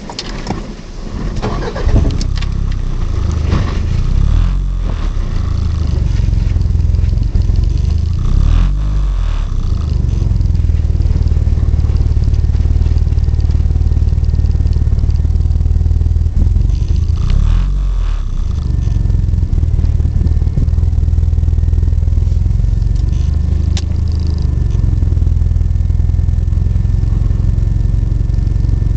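Car engine that is hard to start, building up over the first couple of seconds and then running unevenly, its sound dipping briefly several times.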